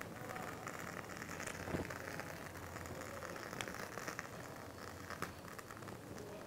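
Faint, soft crackling and squishing as whipped cream is squeezed out through a piping bag's metal nozzle, with many small ticks.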